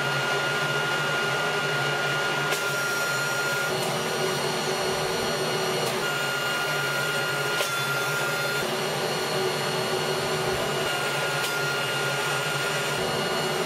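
Electric leaf blower, rigged as a fume extractor through pipe and dryer hose, running steadily on suction: a rush of air with a high motor whine over it, which fades and returns a few times.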